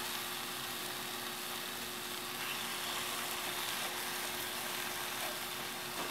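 Marinated chicken breasts sizzling steadily as they fry in a little oil in a pan, browning on the first side.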